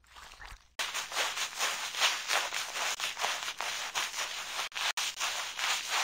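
Bristle brush scrubbing through soapy lather: a dense, scratchy run of quick strokes that starts about a second in, after a fainter soft sound.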